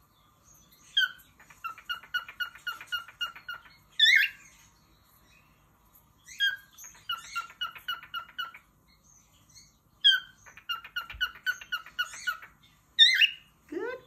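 Male cockatiel singing: three runs of quick repeated chirping notes, about six a second, each opened by a higher whistled slur, with a few single whistles in between.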